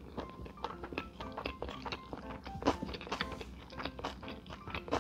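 Background music with a melody of short notes, over close-miked chewing of rice and side dishes with many short sharp clicks.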